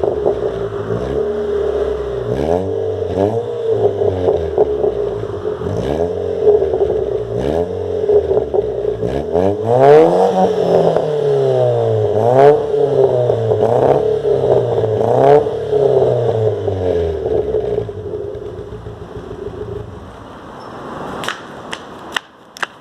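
Chevrolet Corsa 1.0 four-cylinder engine being revved again and again through a loud sport exhaust with JK mufflers in the middle and at the end, each blip rising and falling in pitch. The revving stops about 18 seconds in, and a few sharp clicks follow near the end.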